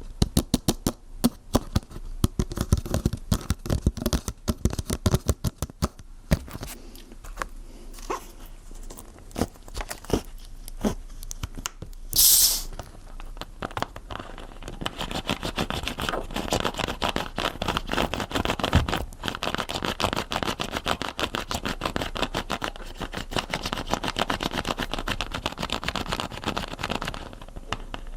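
Dense crackling and popping, with a short hiss about twelve seconds in and thicker crackling from about fourteen seconds on: a fire sizzling as it is put out with water.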